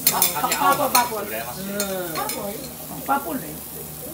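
Metal spatulas scraping and clinking on a hot steel teppan griddle, with a few sharp strokes in the first second, while beaten egg sizzles on the hot plate.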